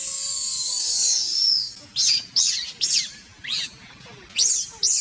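Infant macaque screaming in distress: one long, shrill scream for about two seconds, then a string of six short squeals that each fall in pitch. These are the cries of a baby that its mother is keeping from nursing.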